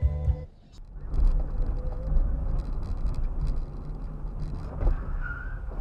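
Car interior noise picked up by a dashcam: a steady low engine-and-road rumble in the cabin as the car moves slowly. It begins after a short drop-out about half a second in.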